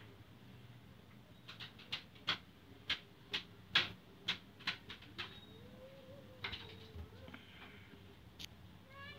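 A quick run of about a dozen short, sharp high ticks over some four seconds, then a faint drawn-out glide, and a domestic cat starting to meow right at the end.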